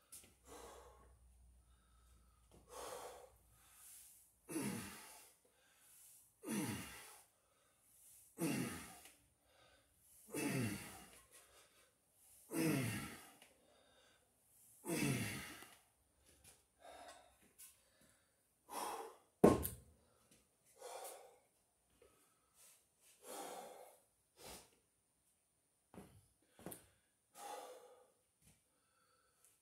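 A man's heavy breathing under load during cinderblock squats: six loud voiced exhales about two seconds apart, each falling in pitch. About nineteen seconds in comes a single sharp knock, the concrete block set down on the floor, followed by quieter, shorter breaths as he recovers.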